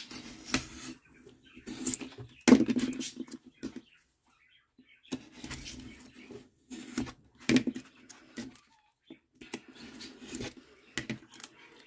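Fingers rubbing and pressing over the trimmed watercolour paper and the birch cradle board: a string of short, irregular rustling scrapes, the loudest about two and a half seconds in.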